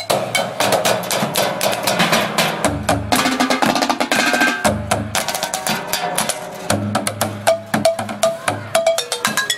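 Music with a busy drum beat over a bass line and melody notes.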